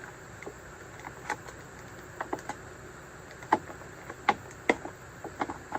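Scattered light clicks and taps of plastic packaging being handled as a toy lightsaber accessory is worked loose from an action figure's plastic tray, about ten sharp clicks, some in quick pairs.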